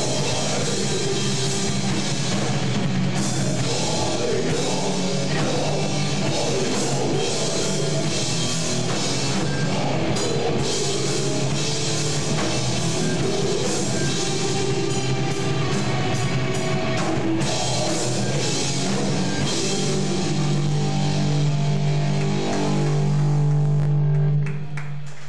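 Live heavy rock band playing loud: distorted electric guitars and a drum kit pounding on. Near the end a held low chord swells louder, then the sound stops abruptly.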